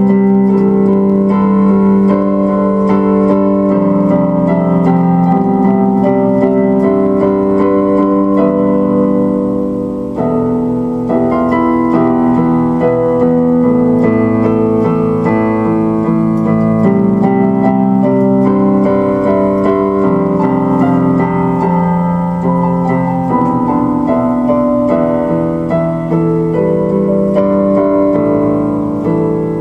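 Solo keyboard music in a piano voice: slow chords with held notes, dipping briefly in loudness about ten seconds in.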